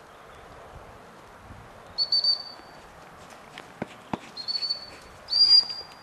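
Gundog whistle blown three times on one steady high note, the first two blasts broken into quick pips: a recall signal to a springer spaniel. Two brief knocks come just before the second blast.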